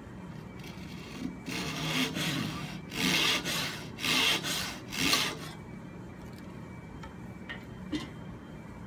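Japanese pull saw crosscutting a narrow wooden strip: about half a dozen rasping strokes, the last ones quicker and louder, ending about five and a half seconds in. Two light clicks follow near the end.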